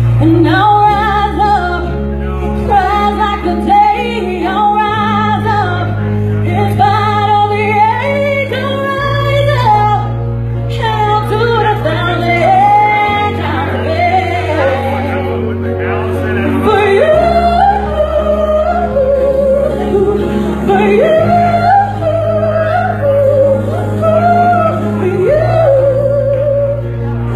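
A woman singing a ballad with vocal runs and long held notes over an accompaniment of sustained bass notes and chords that change about every four seconds.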